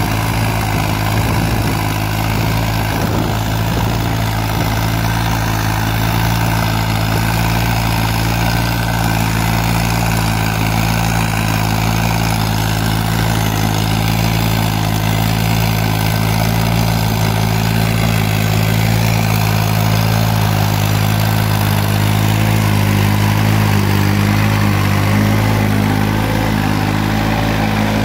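New Holland 3630 tractor's three-cylinder diesel engine running steadily under load while pulling a tine cultivator through dry soil.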